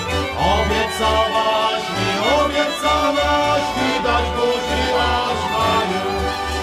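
Folk band music: fiddle and accordion playing over a pulsing bass.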